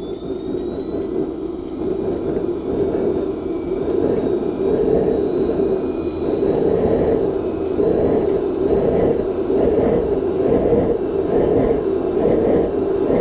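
Homemade mini turbojet engine starting up. A thin whine climbs steadily in pitch as the turbine spools up, steeply at first and then more slowly, over a loud rushing combustion noise that builds during the first few seconds and then holds.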